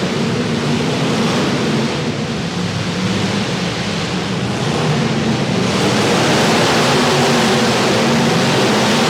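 Many derby car engines running together in a loud, steady din. The noise grows louder and brighter a little past halfway.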